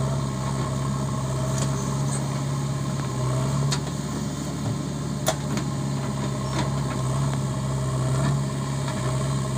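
JCB 3DX backhoe loader's diesel engine running steadily while the backhoe digs and swings a bucket of mud. A sharp clank about five seconds in.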